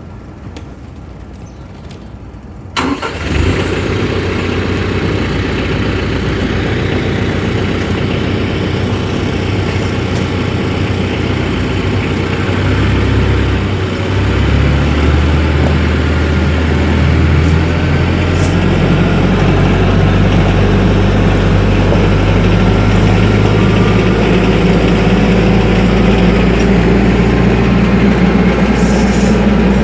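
TYM 474 compact tractor's diesel engine starting about three seconds in, then running steadily. Its pitch shifts partway through and the engine speed rises about two-thirds of the way through.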